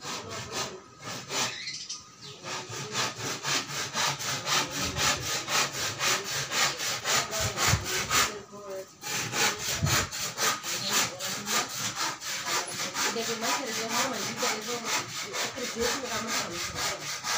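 Hand saw cutting through wood in quick, regular back-and-forth strokes, pausing briefly about eight seconds in and then carrying on.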